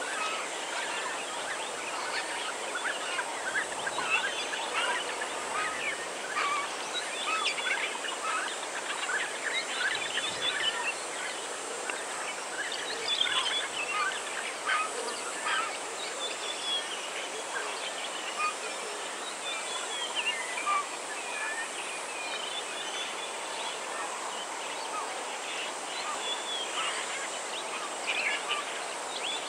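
White-backed vultures calling: many short, high squeals and chatters, irregular and overlapping, over a steady background hiss.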